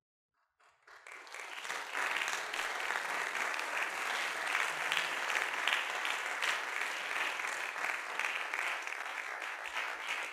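Audience applauding, beginning about a second in, swelling quickly and then holding steady.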